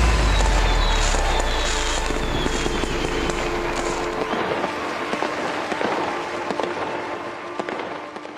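Fireworks crackling and popping in a dense, continuous barrage, fading away over the last few seconds.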